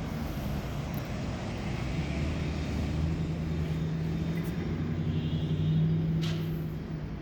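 Engine running with a steady low hum that grows louder, peaks about six seconds in, then fades, with a brief click near the peak.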